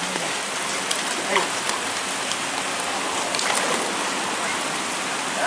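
Steady hiss of water, with a few short faint clicks in the first half.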